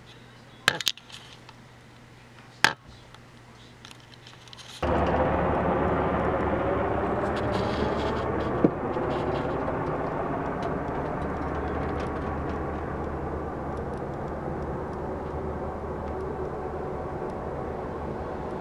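Two sharp clicks over a low background, then about five seconds in a steady helicopter noise starts abruptly: the rotor and turbine sound of Black Hawk helicopters flying over, slowly fading.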